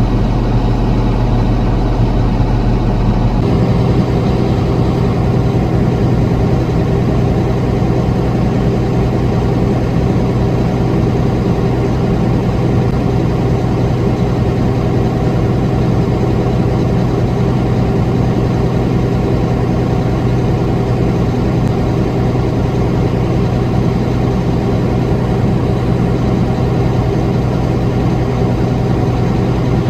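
Heavy diesel farm machinery engine running steadily at harvest. Its low hum shifts about three and a half seconds in.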